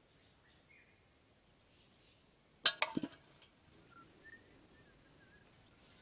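A steady high-pitched insect drone, broken about halfway through by a quick cluster of sharp clicks and knocks. A few faint bird chirps follow near the end.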